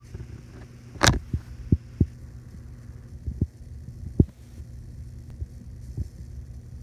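Handling noise close to the microphone: about half a dozen short, dull thumps and knocks, the loudest about a second in, over a steady low hum.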